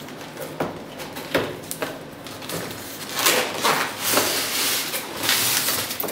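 A cardboard box being opened and unpacked. It starts with a few light knocks as it is handled on the desk, and from about halfway in there is a longer scraping, rubbing rustle as the styrofoam insert slides out of the box.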